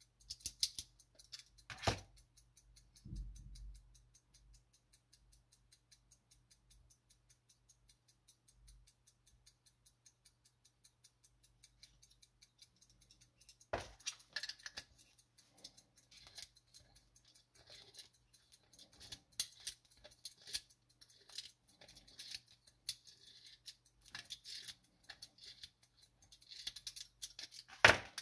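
Platform escapement of a Soviet marine wall-clock movement running after winding, its balance beating in a fast, even train of light ticks. Handling clicks and rustles from the movement being turned in the hand come in over it from about halfway through.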